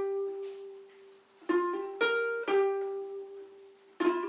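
Ukulele playing a single-note riff: a note plucked on the 5th fret of the C string, hammered on to the 7th, then the 6th fret on the E string and back to the 7th, which rings out. The phrase is played twice, once about a second and a half in and again near the end.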